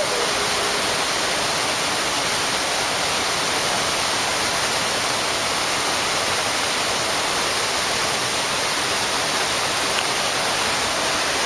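Fountain jets spraying and splashing onto paving: a steady, even rush of water that does not change.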